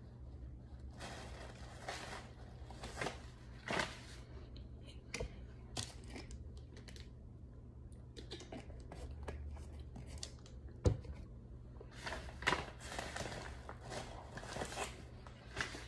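Plastic crinkling and rustling in short spells, with scattered clicks as things are handled, and one sharp knock partway through.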